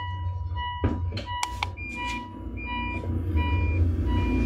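Electronic beeping: short steady beeps repeat about twice a second, then from about two seconds in a higher and a lower beep alternate, over a steady low rumble, with a couple of sharp clicks about a second in.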